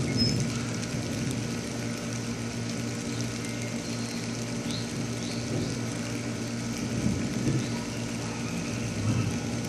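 A steady low rumble with a faint hum in it, and a few faint short high chirps.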